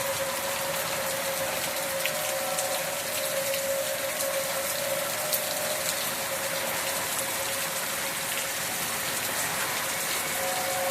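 Steady hiss of rain with a distant outdoor tornado warning siren sounding a steady tone, strong at first and fading out around the middle as it sweeps away.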